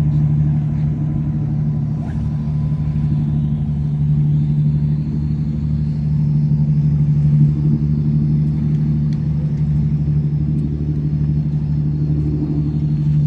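A loud, steady low machine hum that holds one pitch throughout.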